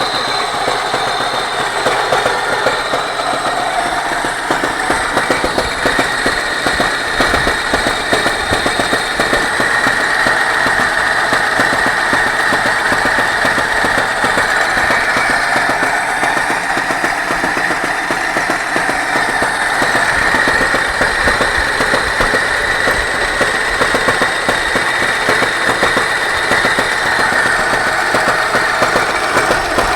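ZMZ-24D engine running steadily with a fast, even knocking in time with the engine.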